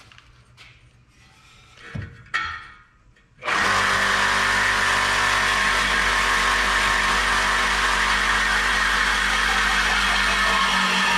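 Corded reciprocating saw (Sawzall) cutting through an exhaust pipe: a few light knocks as the blade is set against the pipe, then about three and a half seconds in the saw starts and runs steadily.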